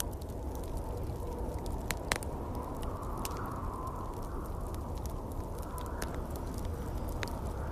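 Wood fire crackling in a fireplace, with scattered sharp pops, the loudest about two seconds in, over a steady bed of winter wind noise with a low rumble.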